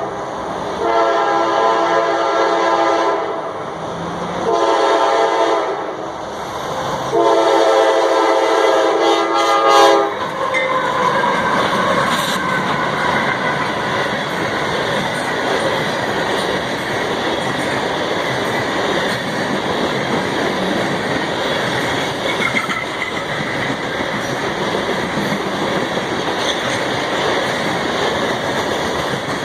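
Diesel locomotive horn sounding for a grade crossing: three blasts, the last held longest. Then the train rolls past with steady rumble and wheel clatter over the rails.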